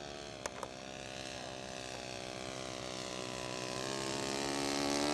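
Radio-controlled scale Blériot XI model's four-stroke glow engine, an O.S. 70 with a fuel pump, running steadily in a low flyby and growing louder as the plane approaches.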